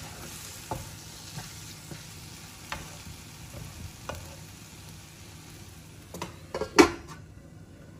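Mushroom masala sizzling in a pan as a wooden spatula stirs it, with light taps and scrapes of the spatula. Near the end a steel lid clatters down onto the pan, the loudest sound, and the sizzle drops away under it.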